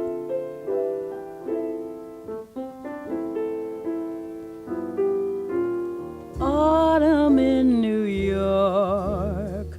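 Background music: a slow piano introduction, then a singer comes in about six seconds in, holding long notes with vibrato over the piano.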